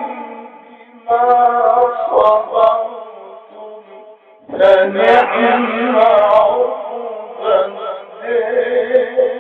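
A man reciting the Quran in the melodic chanted style (tajwid), drawing out long ornamented notes, with two short pauses for breath.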